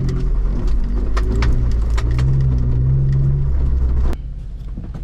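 Car driving, heard from inside the cabin: a loud, deep, steady engine and road rumble with scattered light clicks. It drops suddenly to a quieter hum about four seconds in.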